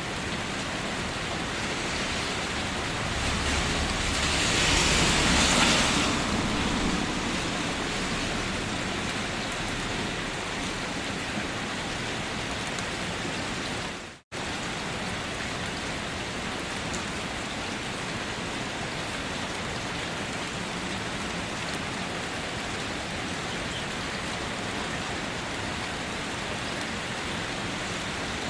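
Steady, even rain. It swells louder for a few seconds near the start, then settles back. Just past the middle it cuts out suddenly for a split second, then resumes unchanged.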